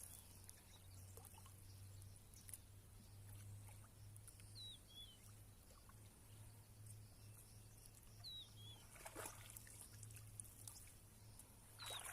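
Near silence: faint outdoor ambience with a low steady hum and a few faint short high chirps, about four seconds apart.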